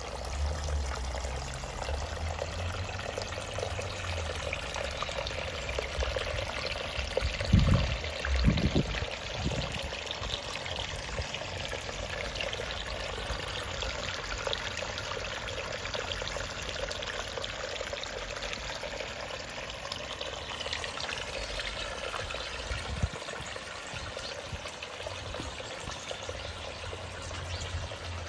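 Gentle pondless waterfall running: water trickling and babbling steadily over low rocks and gravel in a shallow stream, with no big drops. There are a couple of brief low thumps about eight seconds in.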